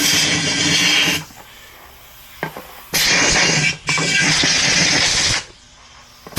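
Hissing blasts from a pressurised nozzle, switched on and off in three bursts with short pauses, used to clean water out of a lawn mower's fuel tank. A small click falls in the quiet gap.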